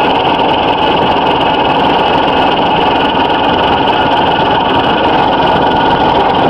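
Prototype twin-disc spinner attachment on a manure spreader running with its drive at a steady speed. A constant mechanical running noise with a steady whine.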